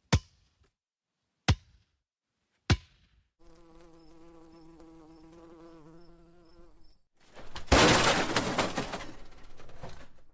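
Three sharp clicks, each over a second apart, then a fly buzzing steadily for about three and a half seconds. Near the end comes a loud rush of noise that slowly fades.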